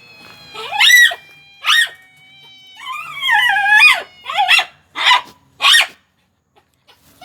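A pet animal giving several high, wavering cries that rise and fall in pitch, the longest lasting about a second, about three seconds in. Near the end come three short hissing 'pss' calls used to coax a cat.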